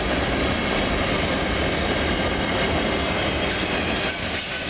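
CN freight train's cars rolling past, a steady rumble and rush of steel wheels on the rails.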